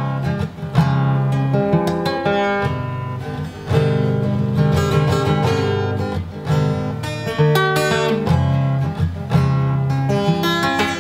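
Steel-string acoustic guitar playing chords with ringing low bass notes, picked and strummed in a steady flow with no singing.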